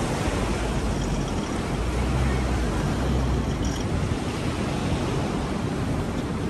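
Wind buffeting the microphone over the hiss of ocean surf, with a stronger low rumble for about a second and a half near the middle.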